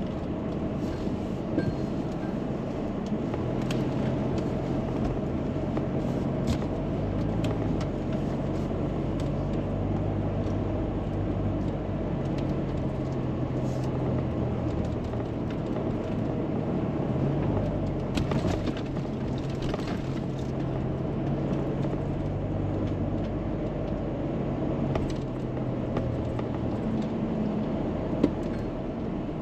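A car driving: a steady engine hum and road rumble whose pitch shifts slightly now and then, with a few faint rattles.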